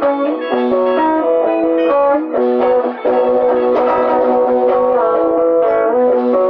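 A small band jamming live: electric guitars playing over held keyboard notes, with the pitches changing every second or so.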